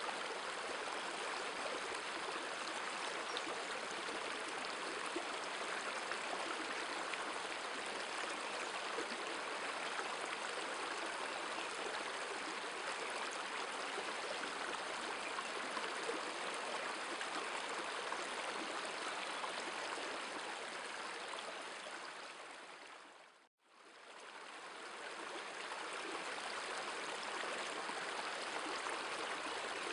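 Shallow river water rushing steadily over stones and gravel. About twenty-three seconds in it fades out to silence and straight back in.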